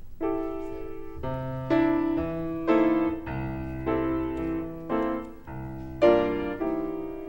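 Piano playing a slow run of about nine chords, each struck and left to ring. The loudest chord comes about six seconds in and is held, fading away.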